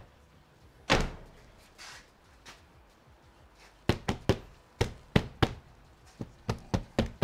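A car door shutting with a thud about a second in. From about four seconds, a run of about a dozen sharp knocks as a hand slaps a polycarbonate window insert to seat it into the door's window seals.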